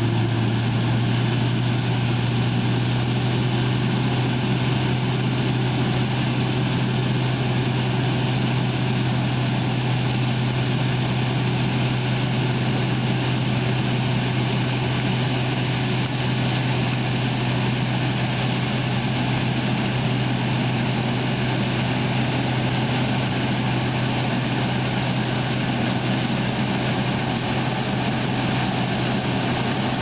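Engine running with a steady low drone that holds even throughout.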